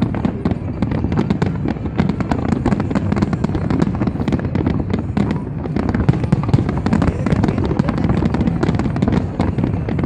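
Fireworks display: a dense, unbroken barrage of bangs and crackling reports, many per second.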